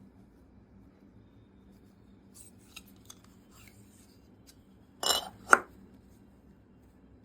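Small hard parts of an M.2 SSD enclosure being handled: light clicks and rubs, then two loud scraping clacks about five seconds in.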